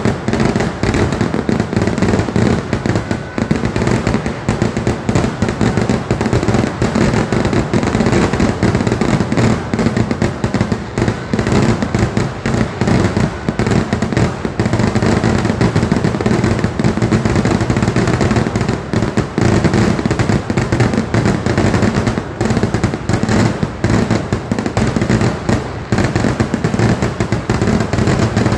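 Festival fireworks display in full barrage: a dense, unbroken stream of rapid bangs and crackling from shells bursting overhead, loud throughout with no pause.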